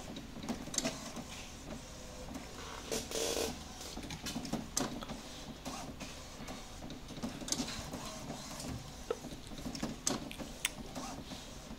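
HP Officejet Pro 8100 inkjet printer printing a test pattern page: the mechanism runs with short whirs and many irregular clicks and knocks over a steady low hum as the page is fed out.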